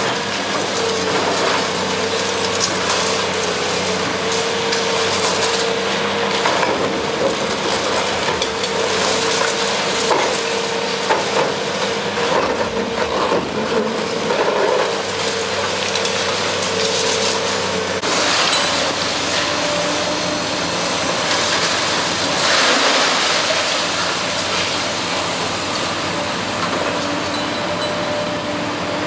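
Hydraulic concrete crusher on a demolition excavator biting into reinforced concrete: continuous crunching and cracking with rubble falling, over the steady whine of the machine. The whine stops about eighteen seconds in and the crushing continues with a different, more open sound.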